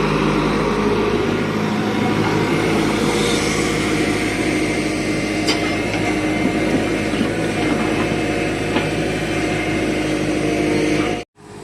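Diesel engine of a Tata Hitachi 120H hydraulic excavator running steadily at working speed, with a few faint knocks. The sound cuts out for a moment near the end and comes back quieter.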